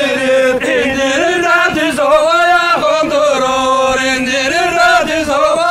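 Men singing a Sivas halay folk song together in unison, a chant-like melody of long held notes that bend and break.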